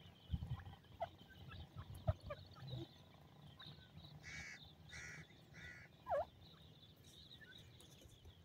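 Pheasant calling: a run of three harsh, raspy notes about two thirds of a second apart in the middle, with short thin chirps scattered around them.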